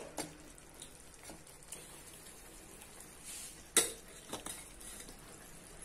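Light clatter of a metal spoon against a steel pan and plate: a few soft clicks over a quiet background, with one sharper clink a little under four seconds in.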